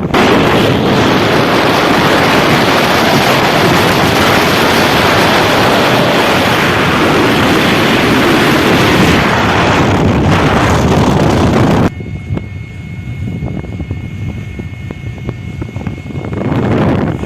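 Strong wind buffeting the microphone in a loud, steady rush. About twelve seconds in it cuts off suddenly to a quieter background carrying a faint steady high tone, then gusts up again briefly near the end.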